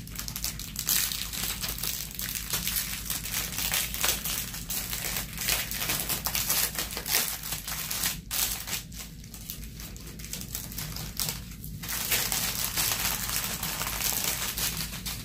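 Clear plastic packaging crinkling as it is handled and pulled open: the cellophane bag holding a diamond painting kit's small bags of drills being unwrapped, with short pauses about eight and eleven and a half seconds in.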